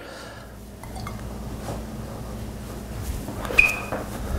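Faint handling sounds of a basting brush spreading olive oil over a raw rack of baby back ribs, over a steady low hum, with one short, high clink about three and a half seconds in.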